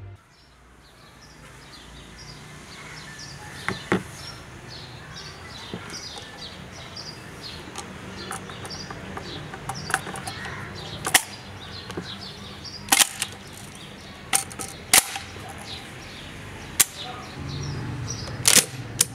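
Sharp metallic clicks and clacks from handling a Turkish MKA1919 12-gauge semi-automatic shotgun as its box magazine is seated and its action is worked, about a dozen separate clicks spread out with a cluster near the end. Birds chirp in the background.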